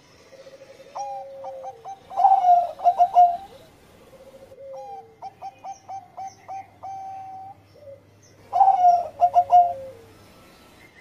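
Zebra dove (Bangkok-line perkutut) singing its cooing song in the single-phrase "engkel" style, three times. Each phrase opens with a low sliding coo and runs into a string of quick, clipped coos.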